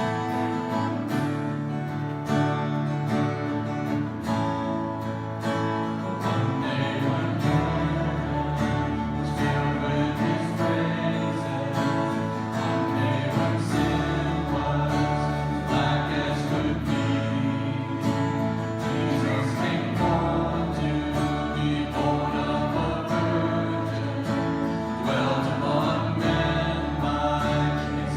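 Worship song: acoustic guitar strumming with voices singing together over a steady bass line.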